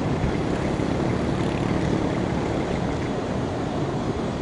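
Steady rushing rumble with no distinct events, heaviest in the low range.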